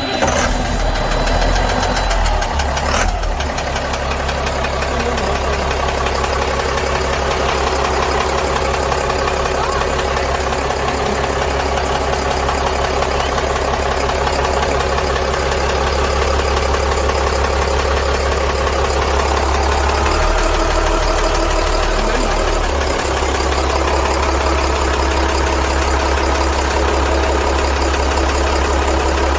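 Caterpillar 3116 inline-six diesel engine idling with a persistent tapping and clunking knock, the unexplained noise the owner is asking about. One sharp knock stands out about three seconds in.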